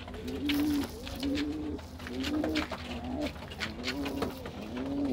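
Domestic pigeons cooing over and over, low rolling coos one after another with hardly a break, overlaid by a few light clicks.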